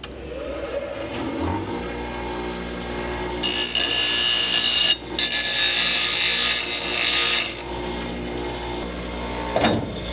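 Bench grinder motor running steadily, with a cut piece of steel angle pressed against the wheel for about four seconds of loud grinding, broken by a short pause in the middle: deburring the cut edges. A knock near the end.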